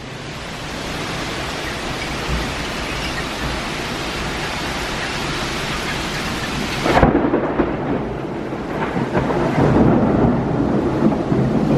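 Thunderstorm: rain falling in a steady hiss, then about seven seconds in a louder, lower, uneven rumble of thunder and gusting wind.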